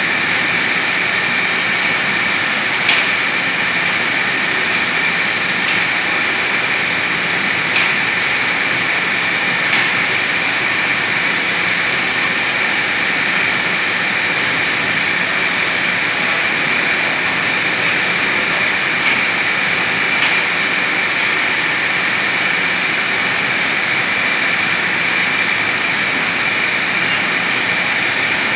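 Electrostatic disk-bell paint spraying system running in its spray booth: a steady loud rush of air with a high whine, and a few faint clicks now and then.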